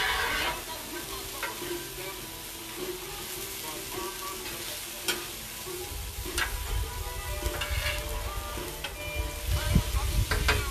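Taco meat sizzling and frying on a Blackstone 28-inch flat-top griddle as it is stirred, with a few sharp clicks along the way.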